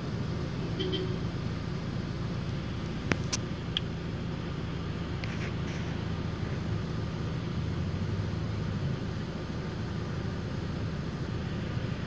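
Car engine running steadily, heard from inside the cabin, over the low rumble of street traffic. A single sharp click about three seconds in, with a few short high-pitched sounds around it.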